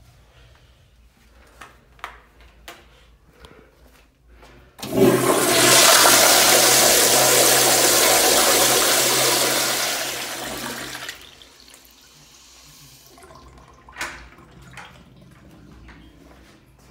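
Kohler Kingston flushometer toilet flushing: a sudden loud rush of water about five seconds in runs steadily for about five seconds, then tapers off and stops. Faint clicks come before it, and a short knock follows a few seconds after.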